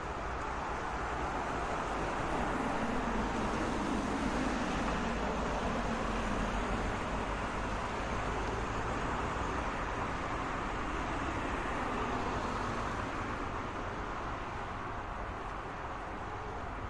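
Road traffic noise: a steady wash of passing cars that swells a few seconds in as a vehicle goes by, then eases.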